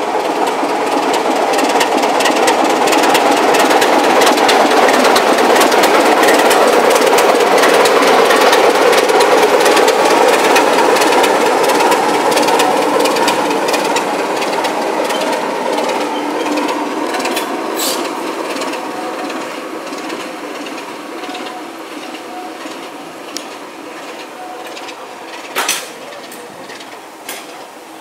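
British Rail Class 24 diesel locomotive's Sulzer six-cylinder engine running loud, with a dense clatter of ticks over it. The sound builds over the first few seconds, then slowly fades through the second half, with a couple of sharp knocks near the end.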